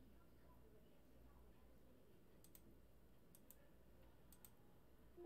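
Computer mouse clicking: three quick double clicks about a second apart over a faint low hum. Right at the end a Windows error chime sounds.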